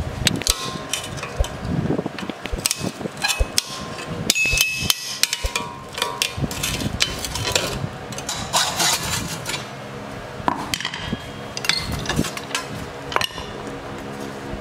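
Irregular sharp knocks and scraping of metal on wood as the old riveted wooden handle scales are knocked and pried off a rusty machete's tang held in a bench vise.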